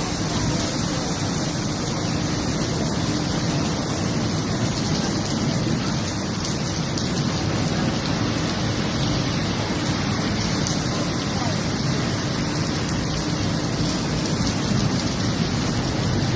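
Heavy rain falling steadily, a dense even hiss without let-up.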